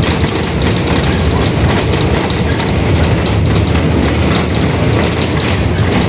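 Mercedes-Benz OF-1721 Bluetec 5 city bus under way, heard from inside: a steady low drone from its front-mounted diesel engine and drivetrain, with frequent rattles of the body and fittings. The drone comes with a differential that the uploader says is growling.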